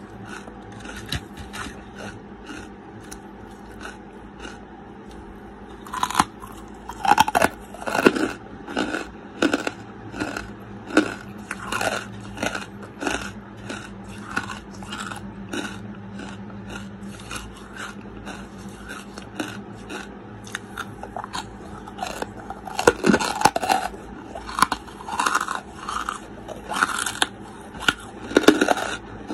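Close-miked biting and chewing of chunks of charcoal: gritty, crisp crunching in quick irregular clicks. Louder bites come about six seconds in and again near the end.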